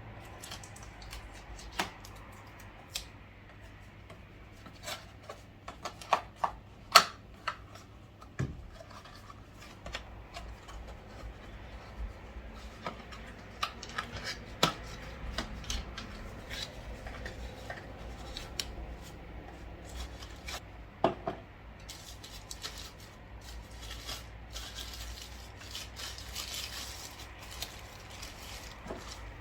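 Unpacking a humidifier from its box: scattered clicks and knocks of handled parts, with rustling of cardboard and plastic packaging that thickens near the end.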